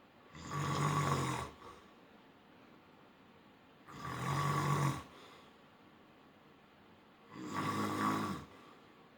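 A person snoring in sleep: three loud snores about three and a half seconds apart, each lasting a little over a second.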